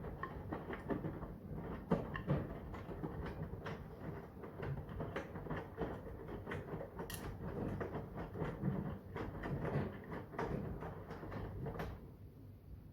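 Brandt front-loading washing machine mid-cycle on a 40°C cotton wash: the drum turns with a low motor hum while the wet load and water slosh and knock irregularly against it.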